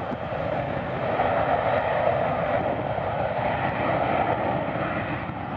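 Boeing 737-800's CFM56-7B jet engines at high thrust on the runway, a steady rushing jet noise, typical of the take-off roll.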